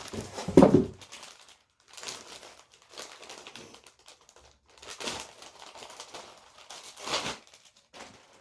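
Packaging crinkling and rustling in handfuls as an elbow guard is unwrapped, loudest about half a second in and again near the end.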